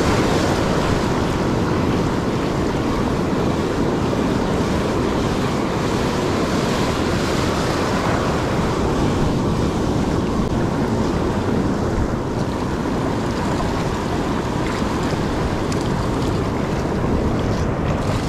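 Surf washing on a sandy beach, mixed with wind buffeting the microphone: a steady rush without a break.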